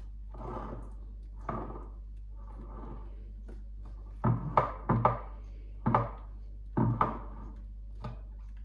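Spatula spreading thick custard in a glass trifle bowl: soft scraping strokes, then from about four seconds in a run of six dull thunks of the spatula and bowl knocking.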